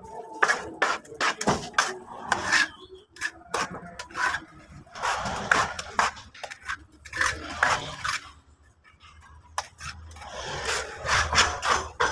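Hand float scraping and rubbing over fresh cement render on a wall, in quick, irregular strokes. A low steady hum comes in near the end.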